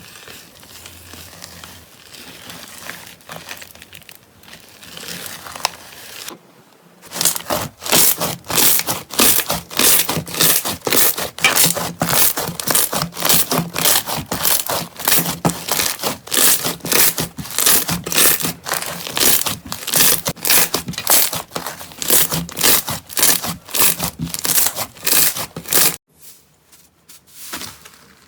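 Slime being squeezed and pressed by hand, giving loud crackling squishes about three times a second from about seven seconds in until shortly before the end, after softer crackling at the start.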